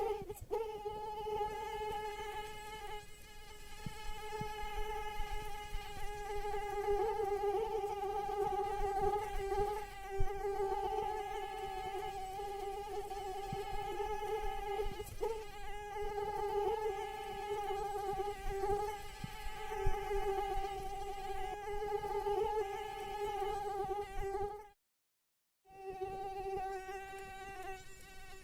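Female mosquito's wingbeat whine in flight: a steady high buzz with a slight waver in pitch and loudness. It cuts out completely for about a second near the end, then resumes.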